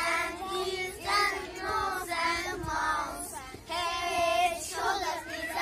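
A group of young children singing together in short phrases with brief breaks between them.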